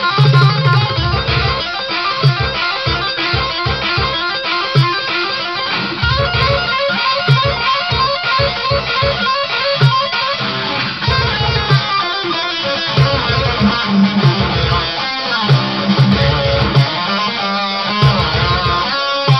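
Distorted electric guitar playing a fast metal passage, with two-handed tapped runs on the fretboard and heavy low chugs; near the end the right hand goes back to picking.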